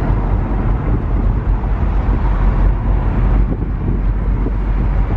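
Steady engine and road noise of a moving vehicle, with wind rumbling on the microphone.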